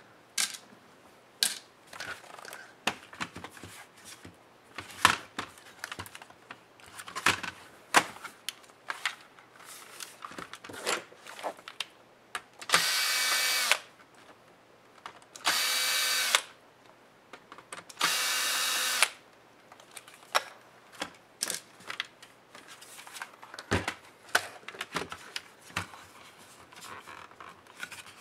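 Cordless electric screwdriver running in three steady bursts of about a second each, backing screws out of a laptop's plastic bottom case. Before and after the bursts come scattered sharp clicks and knocks of the laptop and its screws being handled.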